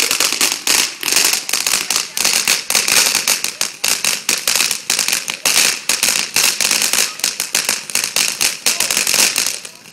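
Ground-level consumer firework going off in a rapid string of loud cracks, several a second, that stops abruptly near the end.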